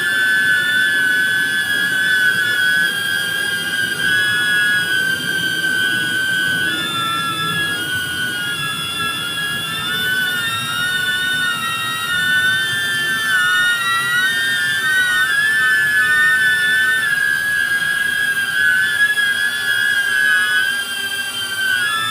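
DJI Neo mini drone flying on Gemfan GEM-D51 ducted propellers: a high-pitched whine from its several motors, the pitch wavering up and down as the motors speed up and slow down.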